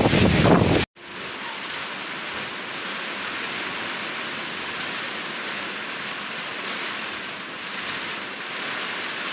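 Wind buffeting the microphone for about the first second, cut off abruptly, then steady heavy typhoon rain hissing.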